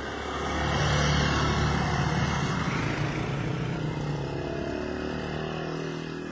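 A motorcycle engine running close by, over a steady rushing noise; from about four seconds in its pitch climbs as it is revved.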